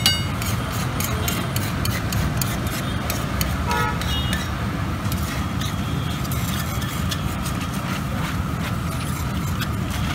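Steel spatula scraping and tapping on a large flat iron griddle (tawa) while working an egg masala mixture, over a steady hum of street traffic. A brief ringing tone sounds about four seconds in.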